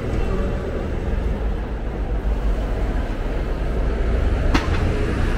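Low, steady rumble of city street traffic, with a bus engine running close by. A single sharp knock comes about four and a half seconds in.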